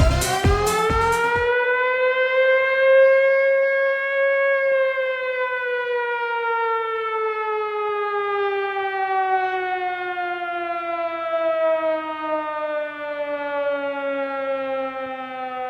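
A siren wailing: one long tone that rises in pitch for about four seconds, then falls slowly and steadily until it cuts off. The last beats of electronic dance music fade out in the first second and a half.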